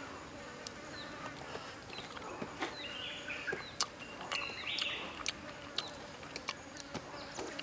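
Close-up chewing of grilled frog: scattered sharp clicks and smacks from the mouth. An insect buzzing briefly twice, about two and a half and five seconds in.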